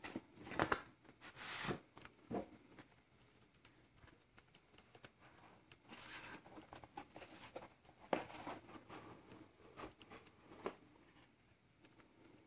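Faint handling of a cardboard phone box and its card inserts: scattered taps and clicks with a few short sliding, scraping rustles as the card pieces are lifted off and set down.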